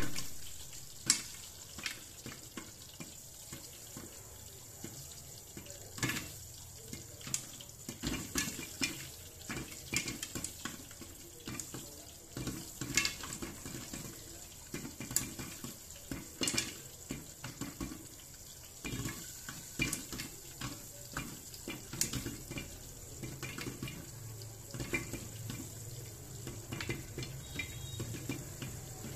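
Popcorn kernels popping in an electric hot pot under a glass lid: irregular sharp pops, sometimes several a second, over a steady hiss. A louder knock right at the start.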